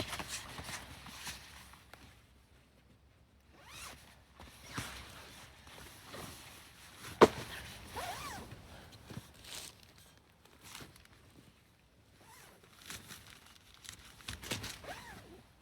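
Camp gear being handled while tidying up: intermittent rustling and zipper pulls, with a sharp click about seven seconds in.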